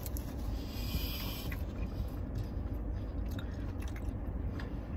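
A person biting into and chewing a grilled chicken sandwich on a ciabatta bun, with a brief crisp crackle about a second in and small wet mouth clicks, over a low steady background rumble.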